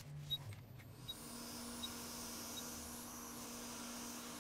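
Hot air rework station with a wide nozzle starting to blow about a second in: a steady airflow hiss with a low hum under it, as it heats the board to desolder a flex cable.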